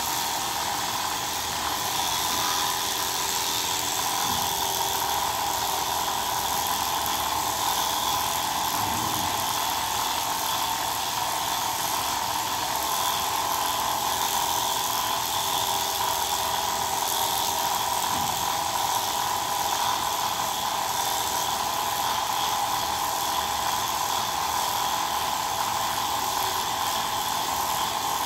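Corded electric grooming clippers running with a steady buzz as they shave a Persian cat's long fur.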